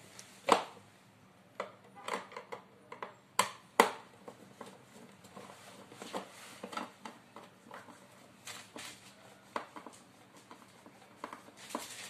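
Scattered sharp metallic clicks and knocks as the nut of a braided steel flexible hose is fitted and tightened onto a water heater's pipe connection by hand and with a screwdriver. The loudest knock comes about half a second in, and two more come close together a little over three seconds in.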